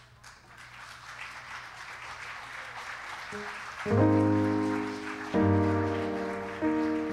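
Congregation applause that swells, then a keyboard comes in about four seconds in with loud sustained chords, a new chord struck about every second and a half, each fading before the next.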